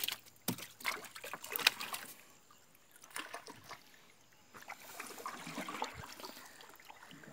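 Water dripping and splashing off a fishing net as it is hauled by hand out of a river into a wooden canoe. A few sharp splashes come in the first two seconds, then a softer, steady trickle.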